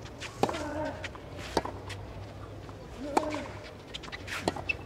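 Tennis rally on a clay court: four racket strikes on the ball about a second and a half apart, two of them with a player's short grunt.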